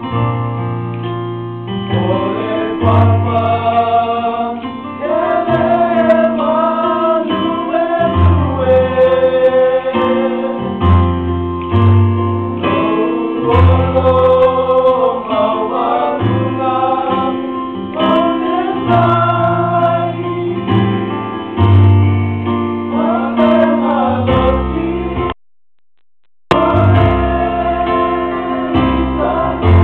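Youth choir singing a Samoan church hymn together, accompanied by an electric keyboard playing sustained chords. The sound drops out completely for about a second near the end.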